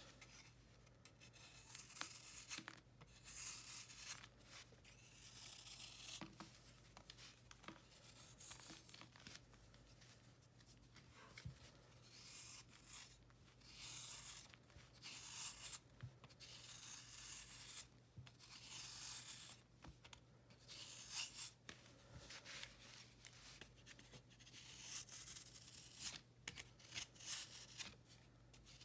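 Snap-off utility knife blade scraping and shaving a dried, chalky block of baking soda, chalk and calcium carbonate. It makes a soft, gritty, crunchy scrape in repeated strokes of about a second each, with short pauses between them, as crumbly flakes break away.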